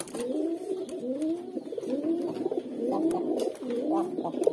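Domestic pigeon cooing in a steady run of low coos, each rising and falling in pitch, about two a second.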